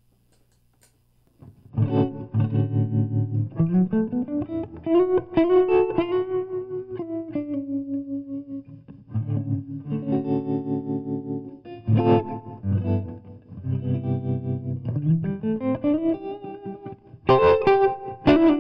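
Gibson semi-hollow electric guitar played through a Fender Tre-Verb pedal with bias tremolo and spring reverb (65 setting) on: chords and melodic lines whose volume pulses quickly up and down, starting about a second and a half in.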